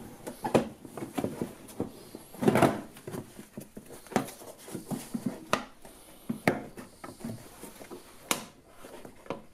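A plastic wheel arch liner being flexed and worked loose by hand, giving irregular rubbing, scraping and clicks, the loudest about two and a half seconds in.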